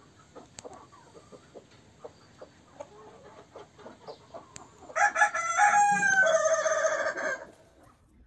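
Chickens clucking softly, then about five seconds in a rooster crows once, one long call of about two and a half seconds that is by far the loudest sound.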